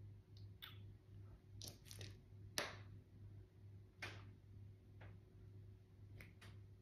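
Faint, scattered clicks and light taps from hands working a styrofoam ball and pipe cleaner at a craft table, the sharpest about two and a half seconds in, over a low steady hum.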